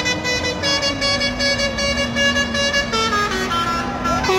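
Truck air horn sounding long held notes, loud and rich in overtones, stepping down in pitch about a second in and again near the end like a tune on musical horns.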